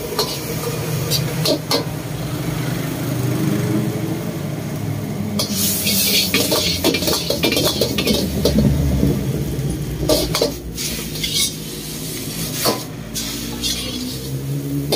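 Metal wok ladle scraping and clanking against a steel wok as noodles are stir-fried and tossed over a gas burner, with sizzling. Many sharp clanks come throughout, over a steady low hum.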